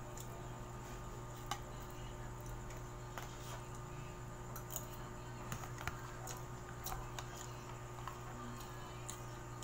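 Scattered faint clicks and taps of plastic tableware, a plate and a lidded food container, being picked up and handled on a table, over a steady low hum.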